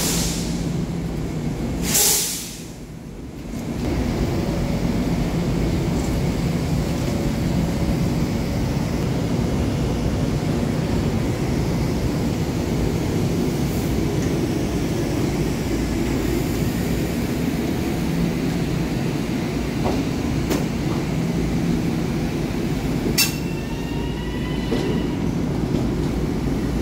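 Long Island Rail Road M7 electric train pulling slowly into an underground station, a steady low rumble of wheels on rail. A brief wavering high squeal from the wheels or brakes comes near the end.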